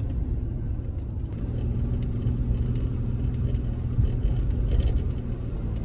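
Car driving along the road, heard from inside the cabin: a steady low rumble of engine and tyre noise with a faint, even hum.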